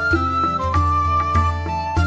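Background music: a traditional-style melody of held, flute-like notes over a steady low drone.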